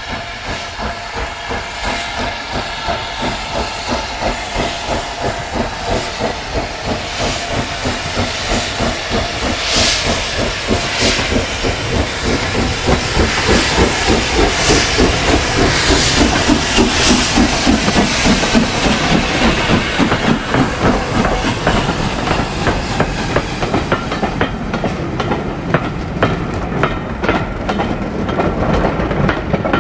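Steam locomotive working, its exhaust beating in a steady rhythm with hissing steam, growing louder to its peak about halfway through. Later a run of sharp clicks joins the sound.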